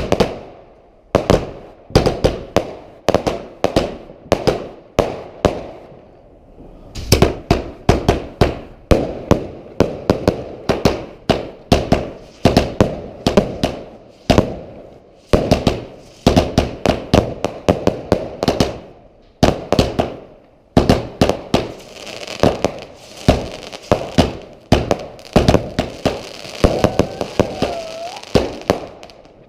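Fireworks going off in quick succession: sharp bangs, often several a second, with brief lulls between volleys. A sustained crackle joins the bangs about three quarters of the way through.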